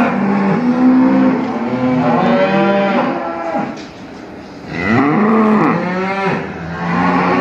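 Cattle mooing: long, drawn-out calls one after another, some overlapping, with a brief lull about four seconds in.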